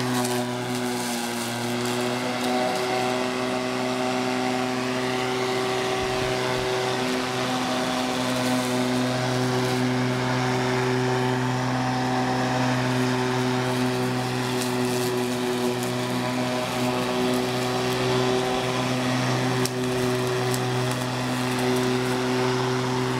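Black & Decker MM1800 18-inch, 12-amp corded electric lawn mower running steadily as it is pushed across grass: an even motor hum of several steady tones over a constant hiss.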